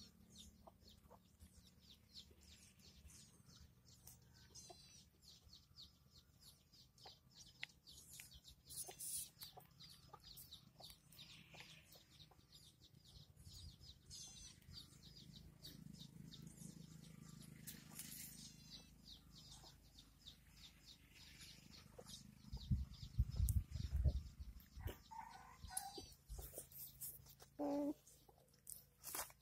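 Puppies play-fighting on dry dirt: scuffling with many small scattered clicks and a few short high-pitched squeaks. A cluster of dull low thumps comes about three-quarters of the way through and is the loudest part.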